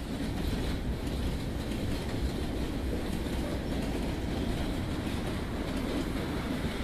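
Freight cars of a Kansas City Southern train rolling past: a steady rumble of steel wheels on the rails.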